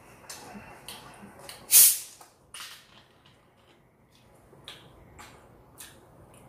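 Plastic soda bottle of cola being uncapped: a sharp hiss of escaping carbonation about two seconds in, a shorter second hiss, then a few light clicks.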